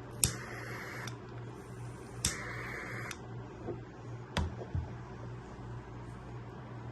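Spray from a skincare product's spray can or bottle, given twice: each spray a click followed by a hiss of just under a second, the two about two seconds apart. A light click and a soft knock follow.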